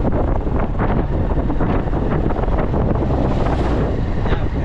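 Wind rushing over the microphone of a moving motorcycle, with the Honda motorcycle's engine running steadily beneath it.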